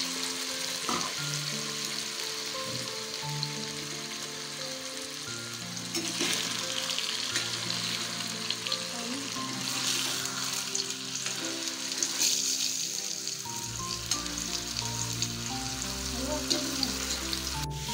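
Marinated soya chunks frying in hot coconut oil in a cast-iron kadai: a steady sizzle, with the scrape and tap of a perforated metal ladle now and then as they are stirred.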